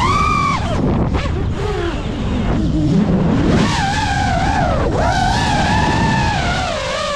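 FPV drone's brushless motors and propellers whining, the pitch swinging up and down sharply with the throttle during aerobatic manoeuvres, holding a high steady whine for a couple of seconds near the end before dropping.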